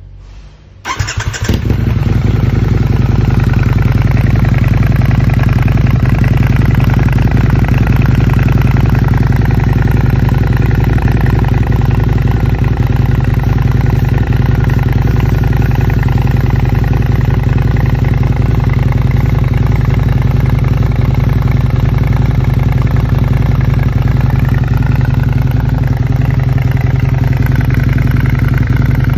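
Harley-Davidson V-Rod Night Rod Special's liquid-cooled V-twin with an Akrapovic exhaust starting about a second in after a brief crank, then idling loud and steady.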